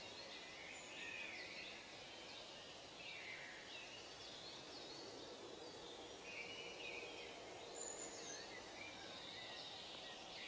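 Faint outdoor ambience of birds chirping over a steady background hiss.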